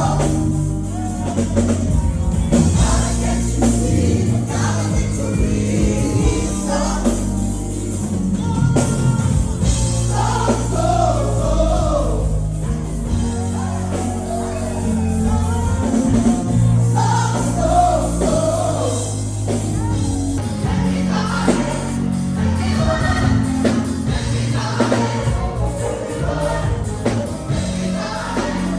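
Gospel choir singing over a band with a steady bass line.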